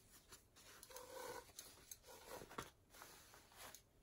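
Faint rustling and rubbing of cotton fabric being pulled slowly through a Fast Turn turning tube, with scattered soft clicks and a brief faint hum about a second in.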